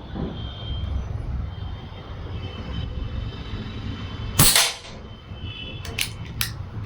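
A PCP air rifle, the Precihole PX100 Achilles, fires once about four and a half seconds in: a sharp crack, the loudest sound here, over a steady low background rumble. Two short clicks follow near the end.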